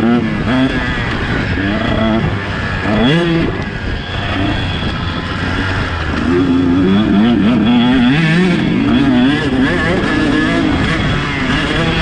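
KTM 150 SX two-stroke motocross bike engine revving up and down again and again as the bike is ridden round the track. The revs climb and drop in quick waves, with a longer, louder run about six seconds in.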